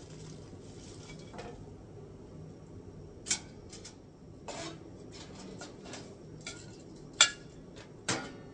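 Metal clinks and knocks from a wire fry basket and stainless tongs against a stainless steel deep fryer and a ceramic bowl: a few sharp knocks, the loudest about seven seconds in, over a low steady background noise.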